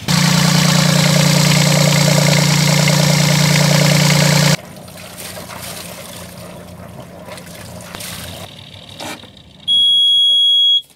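Volvo Penta marine diesel starting up and running loudly for about four and a half seconds, then a quieter steady hum of the engine idling. Near the end, a high steady beep of about a second from the engine panel's alarm buzzer.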